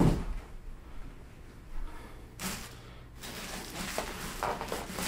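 Polystyrene foam packing and the plastic bag around a PC case being handled: a low thump right at the start, then brief rubbing and crinkling noises.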